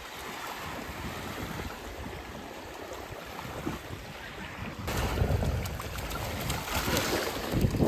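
Small waves washing on a sandy beach shore, with wind rumbling on the microphone; the wind gets louder about five seconds in.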